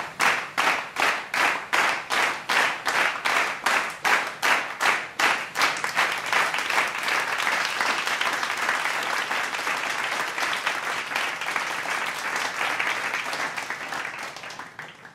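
A crowd clapping in unison at about three claps a second, then breaking into general applause that fades out near the end.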